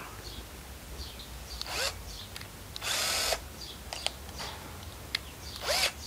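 Cordless drill-driver run briefly: a short whir of about half a second near the middle, with a couple of quicker trigger blips and small clicks and knocks from handling the tool.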